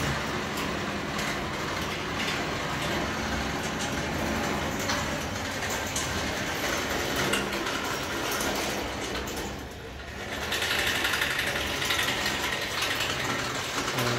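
Steady mechanical whirring of a bicycle crank turning a V-belt and pulley drive. It dips briefly about ten seconds in, then runs louder and brighter to the end.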